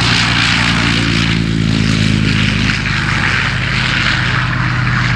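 Propeller aircraft's piston engine running loud and steady, with an even pitch.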